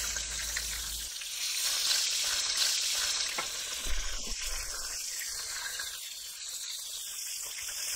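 Flour-battered chicken breast deep-frying in rapeseed oil in a wok: a steady, busy sizzle of bubbling oil, with the piece moved about with tongs now and then.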